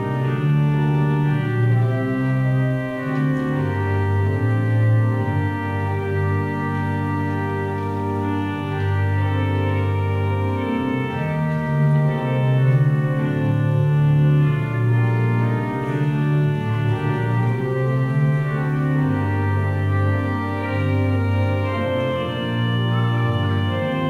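Church pipe organ playing slow, sustained chords over a steady bass line, the harmony changing every second or two.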